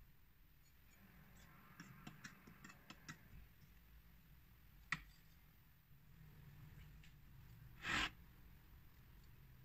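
Faint light clicks and taps of a metal fork and spoon against a ceramic plate while sardines are turned in flour, with one sharper clink about five seconds in and a brief louder knock near the end.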